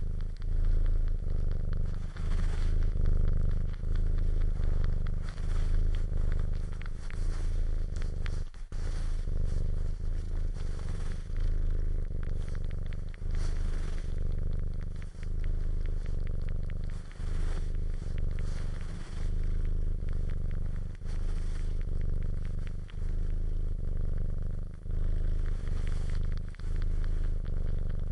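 A cat purring steadily and closely, the purr dipping briefly with each breath about every two seconds. Faint wet clicking of suckling runs over the purr.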